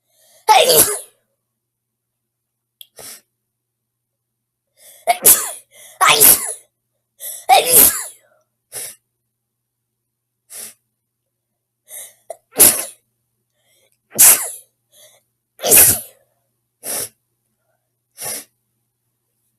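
A person sneezing over and over: about a dozen sneezes at irregular intervals, around seven of them loud and the rest softer.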